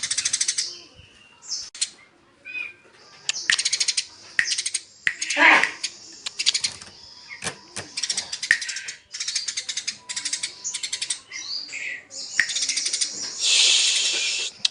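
Eurasian tree sparrows chattering in rapid trains of high chirps, burst after burst with short pauses, the agitated calling of fighting sparrows. One louder, lower, harsher call stands out about five seconds in.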